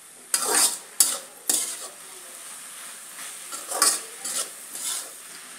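Metal spoon stirring and scraping sautéed amaranth greens around a steel pan in a series of short strokes, over a light sizzle of the greens cooking. The strokes bunch in the first couple of seconds and again near the end.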